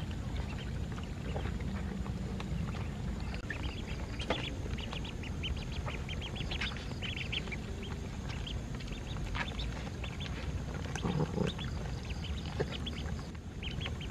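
A flock of ducklings peeping, many short high calls overlapping as they crowd around a feeding tray, over a steady low background noise.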